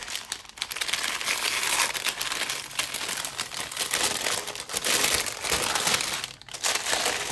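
Packaging crinkling and rustling as a parcel is unpacked by hand, almost continuous with a short lull near the end.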